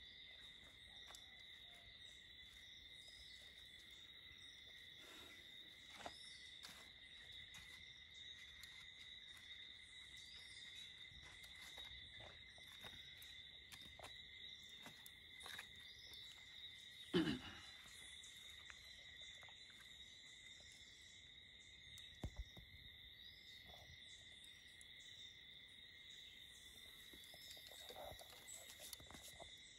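Faint, steady insect trilling from crickets, with scattered soft clicks from handling sticks and spathe at a fire. There is a single sharp knock about seventeen seconds in and a smaller thump a few seconds later.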